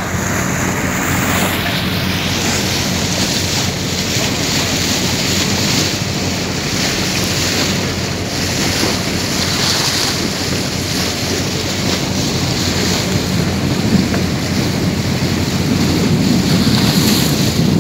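Water rushing along the hull of a pole-and-line fishing boat under way, with wind buffeting the microphone and a low, steady engine hum underneath.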